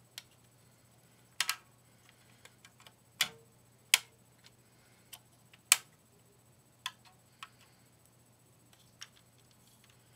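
Irregular sharp clicks and taps of LEGO plastic as a rubber-band crossbow built from LEGO bricks is handled and its band worked on the mechanism; the loudest clicks come about four and six seconds in.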